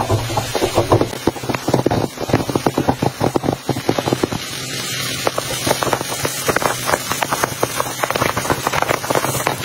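Popcorn kernels popping in hot oil in a wide wok: a dense run of quick, sharp pops, thinning briefly about halfway through before picking up again.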